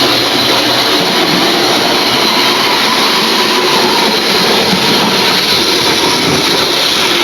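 Model train running around the layout track: a steady whirr of its small electric motor and wheels on the rails, with a faint high whine.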